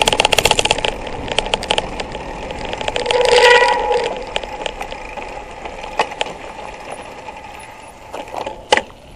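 Mountain bike's freewheel hub ticking rapidly as the rider coasts over gravel, thinning out after a couple of seconds. A short squeal comes about three seconds in, and a sharp click near the end.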